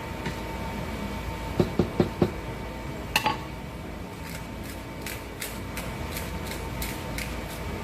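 Kitchen utensils and dishes handled: four quick knocks about a second and a half in, a sharp click near three seconds, then a run of light rhythmic ticks.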